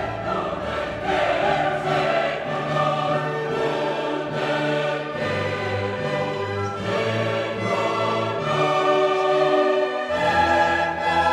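Background orchestral music with a choir singing long held notes.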